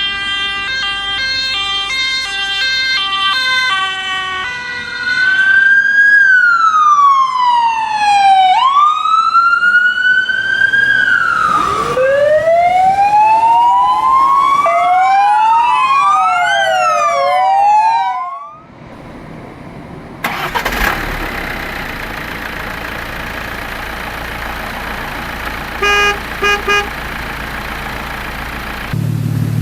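Emergency vehicle siren: a fast two-note hi-lo alternation, then long falling and rising wails, then several overlapping sweeps. After a short break, a steady noise with a few short beeps just past the middle of that stretch.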